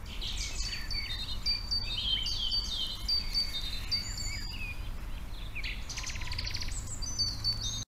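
Songbirds singing in chorus, with many short high chirps, whistles and a fast trill, over a steady low hum; the sound cuts off suddenly near the end.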